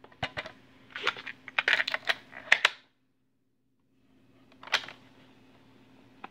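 Clicks and clatter of a cassette player being handled and started: buttons pressed and the mechanism engaging. After a pause and a single click, the cassette begins to play with a steady faint tape hiss and a low hum before the recording's sound starts.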